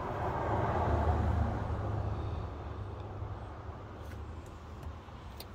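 A vehicle passing by, its low rumble swelling and then fading away over the first few seconds, followed by a few faint clicks.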